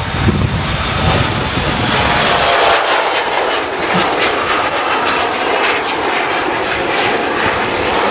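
Turbofan engines of an Embraer E-Jet regional airliner at full power as it lifts off and climbs away from the runway: a loud, steady roar with crackling. Low wind rumble on the microphone fades out about two seconds in.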